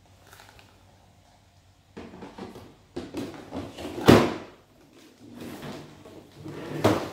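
Plastic drawers sliding in and out of a plastic drawer cabinet, with two louder knocks as a drawer meets its stop: one about four seconds in and one near the end.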